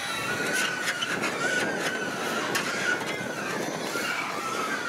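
Kubota DC70 combine harvester's diesel engine running steadily with its header clogged, a wavering high whine over the engine noise and scattered clicks and rattles.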